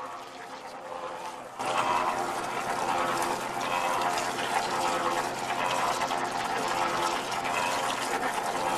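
Water spraying from a hose wand into a mortar mixer drum, starting suddenly about one and a half seconds in and running on as a loud, steady splashing hiss over a faint steady hum.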